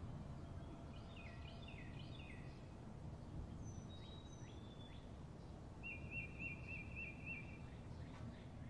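Songbirds chirping and whistling faintly over a low steady rumble: a run of three falling notes a little over a second in, scattered short whistles, and a quick warbled trill about six seconds in.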